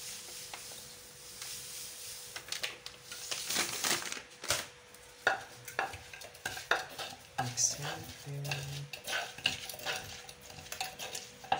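Wooden pestle pounding and working som tum seasonings in a deep wooden mortar, giving irregular wooden knocks that begin a couple of seconds in.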